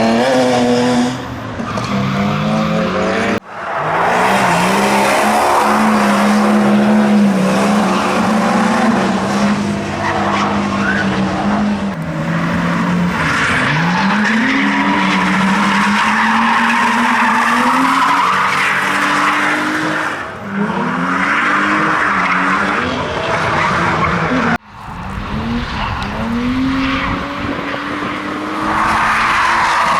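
Drift car engine revving hard, its pitch swinging up and down again and again, over tyres squealing and skidding. The sound breaks off sharply twice, about three seconds in and again near twenty-five seconds.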